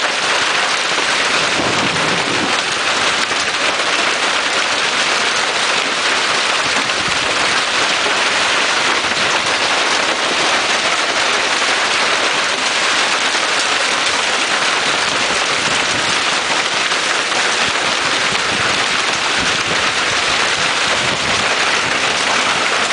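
Monsoon hailstorm: hail and heavy rain pelting down, a loud, steady, dense hiss that does not let up.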